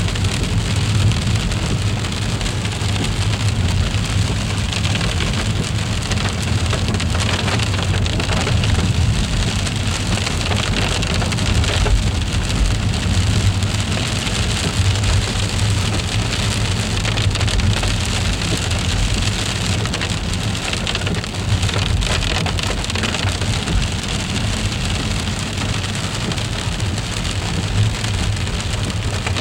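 Steady rain pattering on surfaces, a dense hiss of small ticks over a low rumble.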